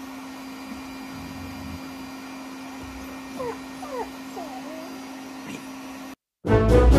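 Canister vacuum cleaner running with a steady hum, while puppies give a few short whimpers about three and a half to four and a half seconds in. The sound cuts off shortly before the end and orchestral music begins.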